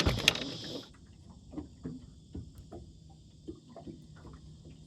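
Insects droning steadily at a high pitch, with scattered faint ticks and taps. A couple of sharp knocks and a brief rush of noise come in the first second.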